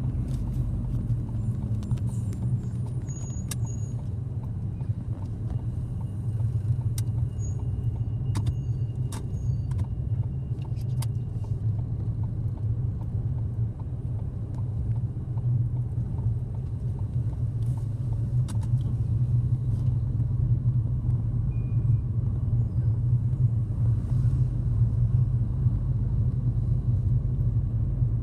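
Car cabin noise while driving: a steady low engine and tyre drone that grows slightly louder in the second half, with a few scattered faint clicks.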